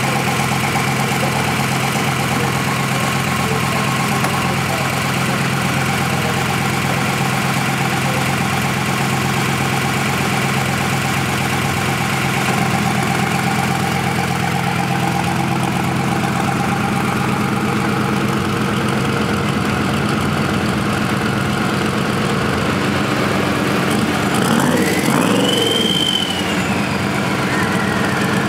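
Turbo-diesel drag-racing pickup engine idling steadily. About 25 seconds in it is briefly revved, and a high turbocharger whine rises and then slowly falls away.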